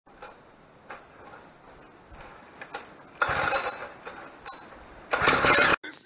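Vintage minibike's two-stroke engine being pull-started: a few light clicks, then two hard pulls of the recoil starter, each a short burst of engine noise, about two seconds apart. The sound cuts off suddenly after the second pull, with no steady running.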